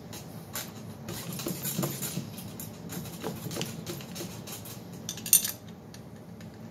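Metal wrench clinking and tapping against the bolts and housing of a Cannondale 440 engine as its bolts are loosened: a run of small clicks and taps, then one sharp metallic clink about five seconds in, over a low steady hum.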